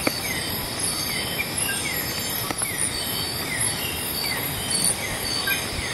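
Steady rain falling, with insects trilling high and constant, and a short falling chirp repeating about once a second.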